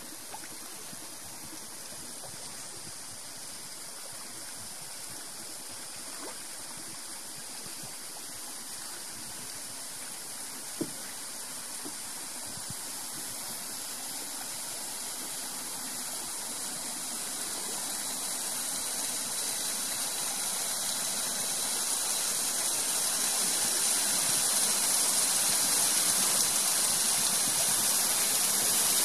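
Small waterfall splashing down a rocky bank into a lake: a steady rush of falling water that grows gradually louder as it comes nearer. One sharp knock about eleven seconds in.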